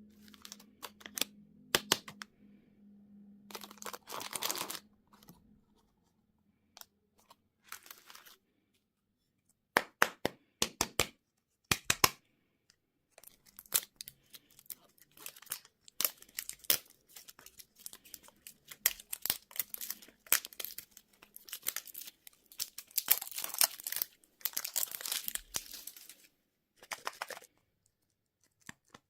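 Plastic candy and toy wrappers being crinkled and torn open by hand, with sharp clicks and taps. It comes in irregular bursts separated by short pauses, with a run of sharp clicks about a third of the way in and the densest crinkling about three-quarters through.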